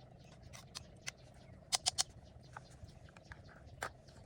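Wood fire crackling: irregular sharp pops and clicks, with a quick run of three loud pops about two seconds in and another a little before the end.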